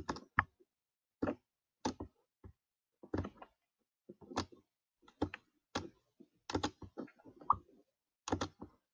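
Irregular clicks and taps at a computer, several short ones with brief pauses between.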